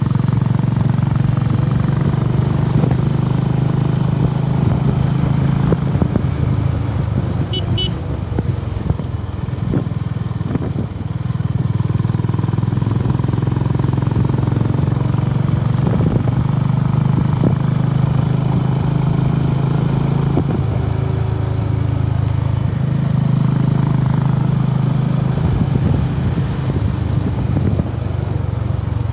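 Honda CB350RS's air-cooled single-cylinder engine running under way, its note easing off a few times and picking up again.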